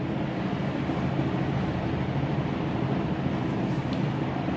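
Steady low background hum with a hiss over it, unchanging throughout.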